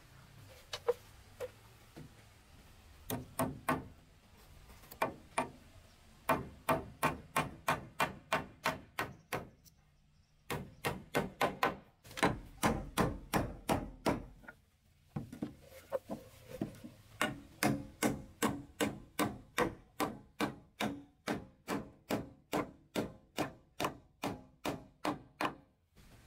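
Hammer driving nails into wooden boards and a post. The blows come in runs of about three a second, with short pauses between the runs.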